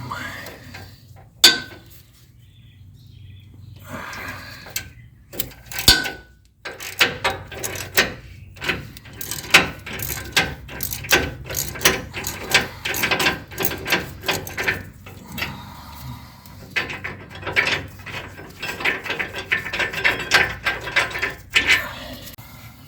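Hand socket ratchet clicking in quick runs while a front differential bolt is worked loose, after a couple of isolated sharp knocks in the first few seconds.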